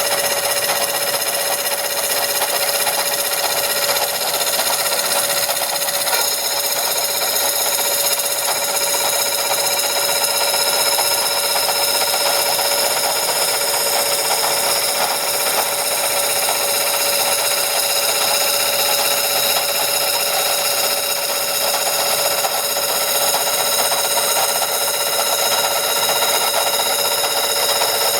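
Metalworking machine tool running steadily with a high-pitched whine and a rubbing cutting noise, as metal is machined.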